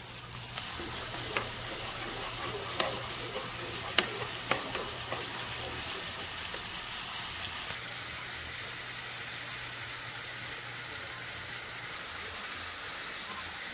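Steady sizzle of pork chops searing in oil in a frying pan, with a few clicks of a spatula against a saucepan in the first five seconds.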